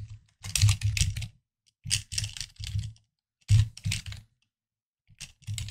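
Computer keyboard typing in short bursts of keystrokes, about six quick runs of clicks separated by brief pauses.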